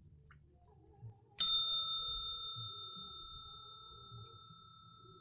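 A small metal bell struck once, about a second and a half in, ringing out clearly and fading slowly.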